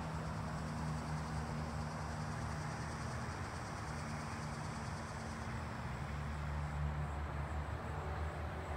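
Steady outdoor background: a low, even hum with a noisy rush over it, and a thin high insect trill.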